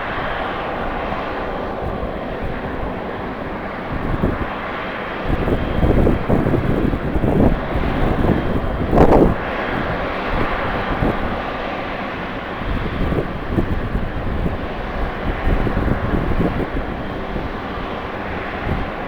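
Jet airliner engines running, a steady rushing noise, with wind gusts buffeting the microphone in irregular low thumps for several seconds in the middle.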